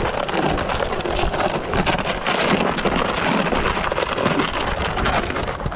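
Loaded plastic fishing sled being dragged over snow-covered lake ice, along with crunching footsteps in the snow: a steady, crackling scrape and crunch.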